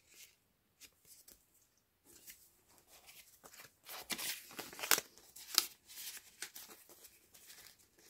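Paper cards rustling and scraping against the paper pages of a handmade journal as they are handled and slid into a page pocket. A few faint ticks at first, then a run of dry rustles and scrapes from about two seconds in, loudest around the middle.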